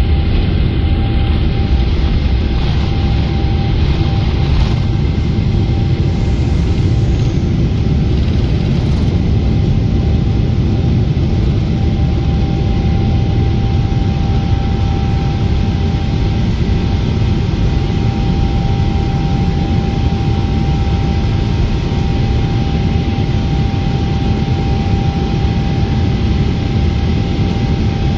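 Cabin noise of a Boeing 777-300ER at takeoff power, heard beside its GE90-115B engine: a loud steady rumble with a steady whine held through liftoff and the initial climb.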